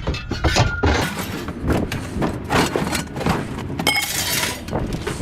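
Aluminum scrap pieces being tossed onto a pile: a rapid run of clanks and clatters, with a short metallic ring just before four seconds in.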